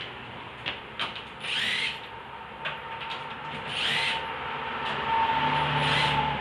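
Electric power tool, used to work the wheel nuts during a tyre change, run in three short bursts with a steady motor whine that grows louder near the end, plus a few light clicks.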